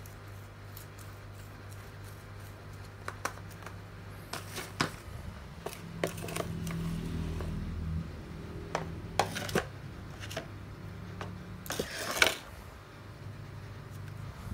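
Small plastic scoop digging into and scraping damp potting mix in a plastic tub and tipping it into a small plastic pot: scattered light scrapes, rustles and clicks, with a few louder scrapes, the loudest about twelve seconds in. A low steady hum runs underneath.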